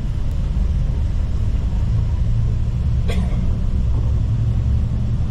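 Steady low rumble of a coach bus driving on the road, heard from inside the passenger cabin. A brief sharp sound cuts through about three seconds in.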